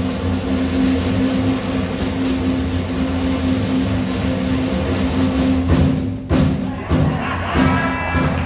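Live small band with upright bass, drums, saxophone and guitar playing a held chord, which breaks off about six seconds in into a few sharp accented hits.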